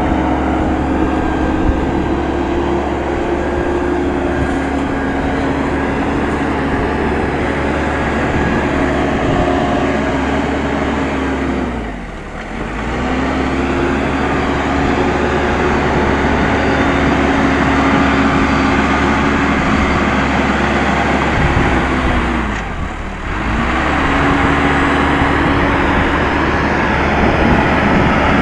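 Case 580M backhoe loader's diesel engine running steadily under work. Twice the revs sag briefly and recover, the pitch falling and rising back.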